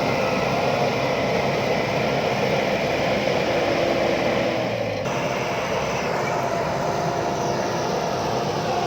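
JCB backhoe loader's diesel engine running steadily, with an abrupt change in the sound about five seconds in.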